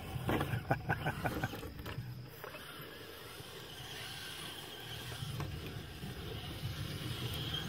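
Radio-controlled rock crawler with a metal-geared transmission driving over rough ground: the electric motor and gearbox whine in spurts, with a run of clicks and knocks near the start as the tires and chassis clatter over obstacles.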